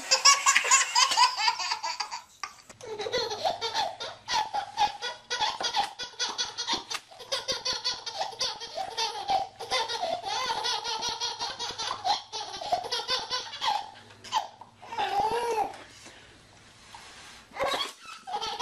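A baby laughing in repeated bouts of belly laughter, with a quieter stretch a few seconds before the end.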